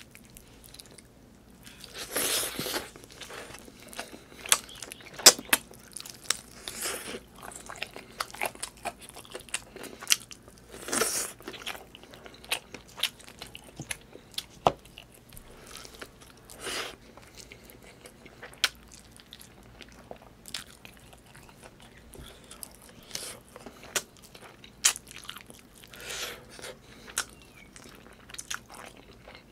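Close-miked chewing and biting of chicken adobo and rice eaten by hand, with many sharp wet clicks and smacks scattered irregularly and several longer, noisier bursts in between.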